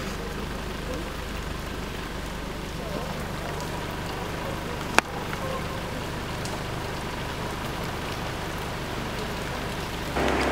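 Steady rain falling on wet pavement, with one sharp click about halfway through.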